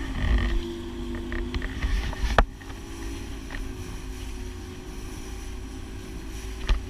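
Boat motor running with a steady hum, with wind rumbling on the microphone. A few sharp knocks come through, the loudest about two and a half seconds in and another near the end.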